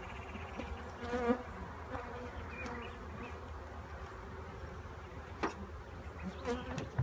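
Honeybees buzzing around an open hive, with single bees passing close about a second in and again near the end. A few sharp knocks come in between.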